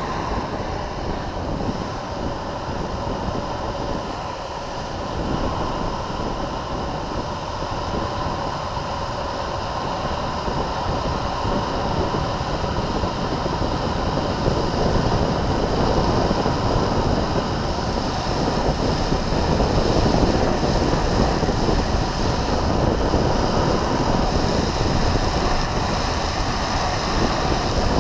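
Wind rushing over the microphone with the rolling roar of longboard wheels on asphalt at downhill speed, growing louder about a third of the way in as speed builds.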